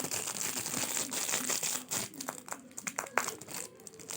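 Plastic packaging crinkling and rustling as it is handled and unwrapped, with a scatter of small sharp crackles.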